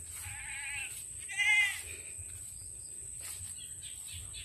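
Goat bleating twice: a quavering call, then a louder, shorter one about a second and a half in.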